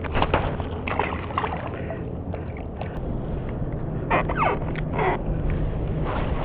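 Wind rushing over the microphone as a steady low rumble, with water slapping and splashing against a kayak's hull in short irregular bursts.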